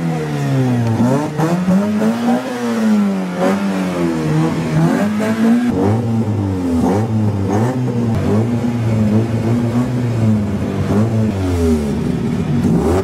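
Alfa Romeo 146's engine revved over and over, its pitch climbing and falling about once a second in the first half. It then holds steadier revs with smaller blips, and drops back near the end.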